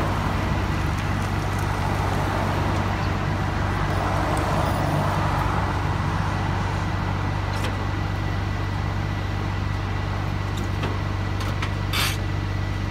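Tow truck engine idling as a steady low hum, with a car going past on the road about four to six seconds in and a few sharp clicks, the clearest about twelve seconds in.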